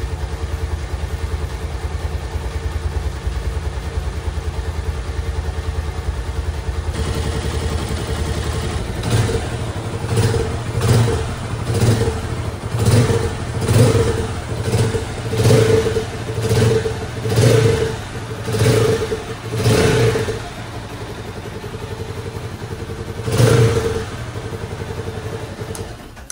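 Loncin Prus 200cc motorcycle engine running after its rebuild. It idles steadily at first. From about a third of the way in, the throttle is blipped about a dozen times, roughly once a second, then once more near the end.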